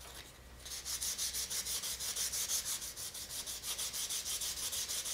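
Sandpaper rubbed by hand along a carbon fiber landing gear leg with a thin fiberglass surface layer, sanding off the mold lines. Quick, even back-and-forth strokes, several a second, start about half a second in.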